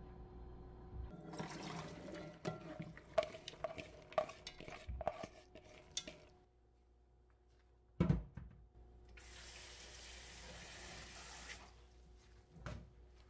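Soaked black soybeans and their soaking water poured into a colander in a kitchen sink, water splashing and the beans clattering. A knock follows, then a kitchen tap runs steadily for about two seconds, filling a pot.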